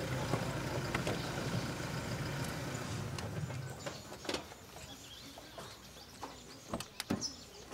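Background music fading out over the first three to four seconds, leaving quiet outdoor ambience with a few short knocks and clicks near the end.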